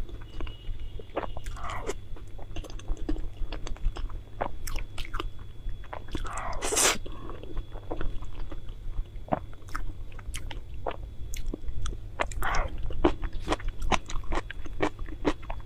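Close-miked eating: steady chewing and biting with many sharp, wet mouth clicks, and a few longer noisy sounds, the loudest about seven seconds in.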